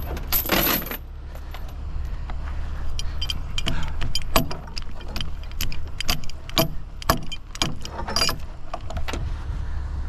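Tow chain being handled and hooked onto the winch cable: a string of sharp, irregular metallic clinks and rattles as the links knock together, over a steady low rumble.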